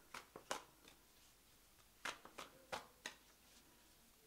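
Soft taps and rustles of tarot cards being handled and set down, a few in the first half-second and four more from about two seconds in.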